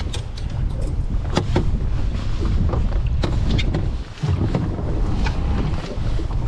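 Wind buffeting the microphone on a small open boat at sea, with scattered sharp knocks and clicks.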